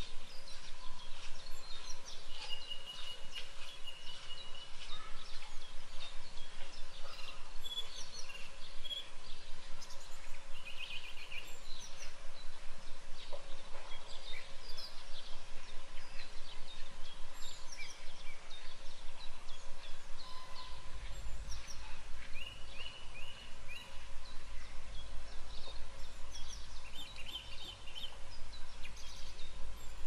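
Several wild birds singing, with many short chirps and trills overlapping throughout, over a faint steady hum; a low rumble comes in about two-thirds of the way through.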